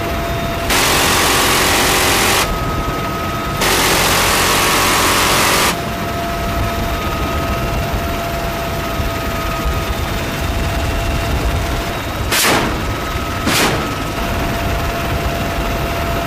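Door-mounted GAU-17/A six-barrel minigun on a UH-1Y Venom helicopter firing two long bursts of about two seconds each, an even continuous buzz, over the steady running noise of the helicopter's turbines and rotor in the open cabin. Two much shorter bursts follow later.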